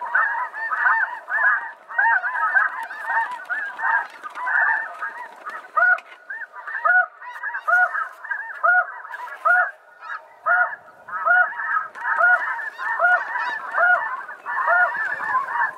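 A flock of snow geese calling: many overlapping honks, with one call repeating evenly about twice a second through the second half.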